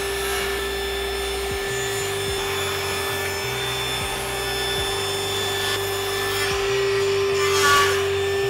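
Table saw running with a steady whine as a pine board is pushed through the blade, the blade cutting along the wood; the cut grows a little louder near the end.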